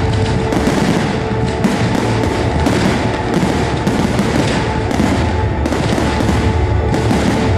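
A dense volley of aerial firework shells, bursting in rapid, overlapping bangs with crackle, with music playing throughout.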